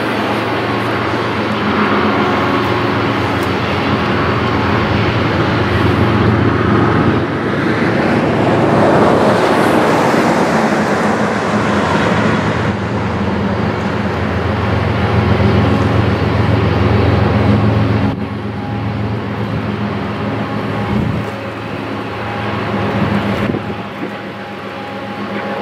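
Freight train rolling past: a CN mid-train diesel locomotive running under load with a steady low engine drone that drops away about two-thirds of the way through, over the continuous rumble of loaded coal hopper cars.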